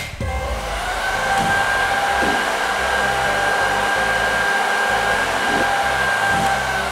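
Hair dryer blowing: its motor whine climbs as it spins up just after the start, holds steady over the rush of air, then winds down near the end as the voltage converter's overload and over-heat protection cuts its power.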